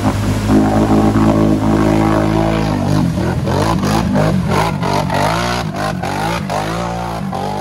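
ATV engine held at high revs with its wheels spinning in deep mud, then revving up and down repeatedly from about three seconds in as the rider works the throttle, with mud splattering.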